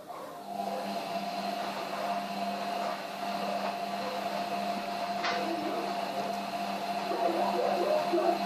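A small electric machine starts about half a second in and runs with a steady hum.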